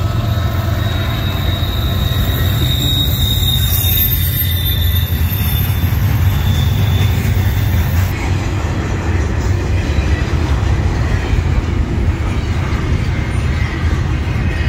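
Double-stack intermodal freight train rolling past at close range: a loud, steady rumble of container cars on the rails, with high-pitched wheel squeal during the first few seconds.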